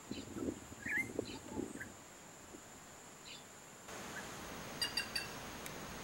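Short bird chirps and, about five seconds in, three quick sharp call notes, over a steady high insect whine. Soft low knocks come in the first two seconds.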